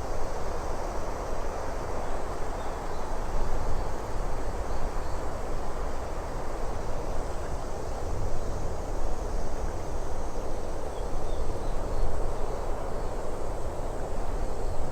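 Steady wind ambience: a constant rushing noise with a low rumble underneath and a few faint, high chirps scattered through it.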